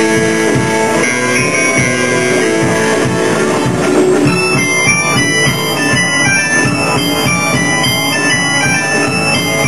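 Music: a band playing held, sustained notes over a steady drum beat.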